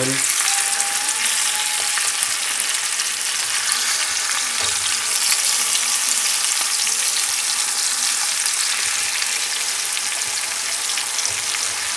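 Marinated lamb ribs sizzling in hot oil in a cast-iron grill pan, a steady hiss, while a spatula turns the pieces over to brown the other side.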